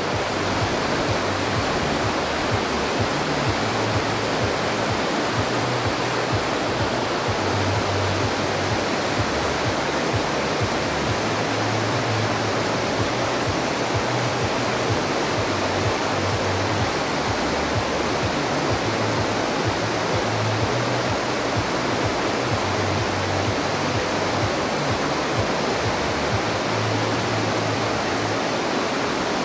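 Loud, steady rush of water pouring through a dam.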